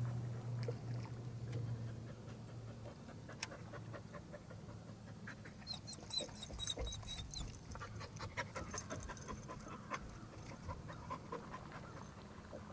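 A dog panting, with scattered light clicks and knocks; a low hum fades out over the first few seconds.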